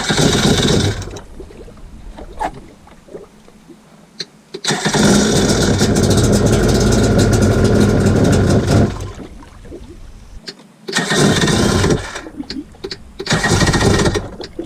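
Rebuilt Yamaha WaveBlaster's 701 twin-cylinder two-stroke engine being started in four attempts: short bursts near the start and near the end, and one of about four seconds in the middle. It does not keep running between attempts.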